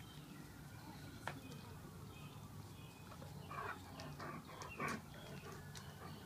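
A dog close to the microphone huffing or sniffing in a few short, quick breaths about halfway through, over a faint steady low hum, with a single sharp click a little after the start.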